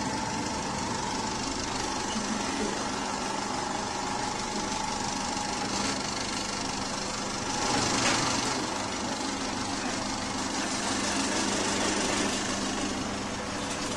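1920s-built cinema film projector, converted for sound, running steadily: a continuous mechanical running sound over a steady hum, swelling briefly about eight seconds in.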